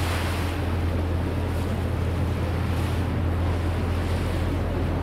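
Sightseeing boat under way: its engine running with a steady low drone, water rushing past the hull, and wind buffeting the microphone.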